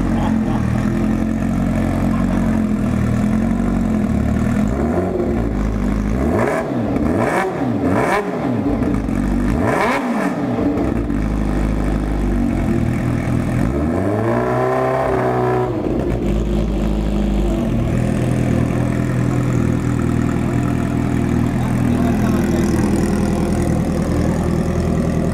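Kawasaki Ninja H2R's supercharged inline-four idling through its exhaust, blipped about four times in quick succession between about six and ten seconds in, then revved in one longer rise and fall around fifteen seconds in before settling back to idle.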